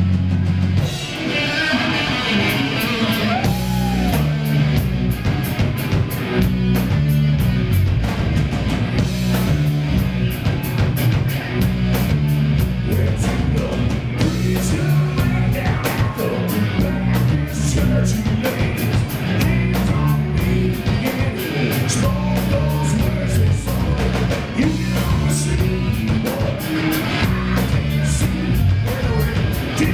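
Live rock band playing loudly: electric guitars, bass and a drum kit keeping a steady beat with regular cymbal hits, with a man singing into a microphone over it.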